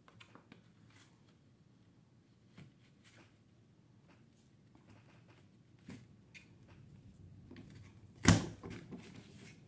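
Paper border punch in use: soft paper handling and small clicks, then one sharp, loud clack near the end as the punch is pressed down through the paper, followed by a little rustling.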